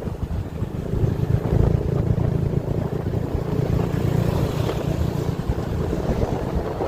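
Motorbike ride heard from the pillion seat: the motorbike's engine running steadily under heavy wind noise on the microphone.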